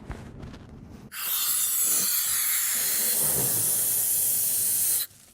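A steady hiss of rushing air at a balloon, starting suddenly about a second in and cutting off abruptly about four seconds later.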